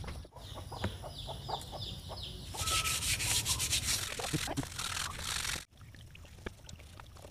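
A cloth soaked in kerosene being rubbed over a motorcycle's grimy metal parts to clean off dirt that soap won't shift. A run of short quick strokes gives way about two and a half seconds in to louder, harsh scrubbing that stops abruptly near the end.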